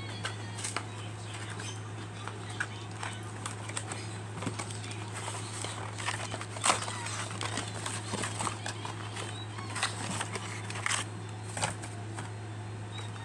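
Toy packaging being handled and opened: irregular small clicks and crackles over a steady low hum.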